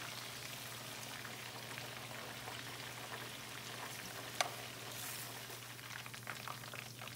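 Chicken wings deep-frying in hot oil in a stainless steel pan, a steady sizzle, with one sharp click of metal tongs about four seconds in as a piece is lifted out.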